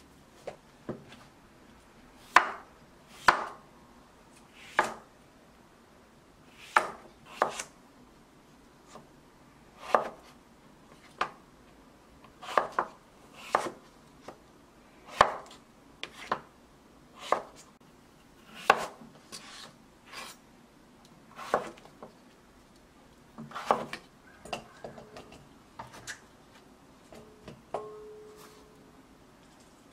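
Kitchen knife cutting fresh cucumbers on a wooden cutting board: separate sharp knocks of the blade striking the board, one every second or two, as the cucumbers are cut into sticks. Near the end, a short light ring as pieces go into a glass bowl.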